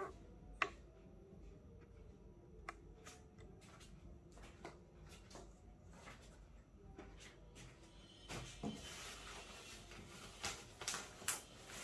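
A few faint knocks and clicks, then from about eight seconds in the rustle and crinkle of cardboard and plastic wrapping being handled inside an office chair's shipping box.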